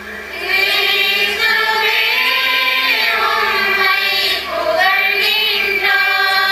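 A choir singing a sung response in long held notes, the liturgical acclamation that follows the Gospel reading at a Catholic Mass.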